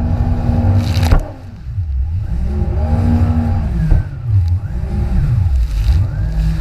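Jet ski engine running steadily, then a loud sharp hit about a second in and a brief drop in level. After that the engine revs up and down over and over, its pitch rising and falling about every second and a half as the craft rides over the waves.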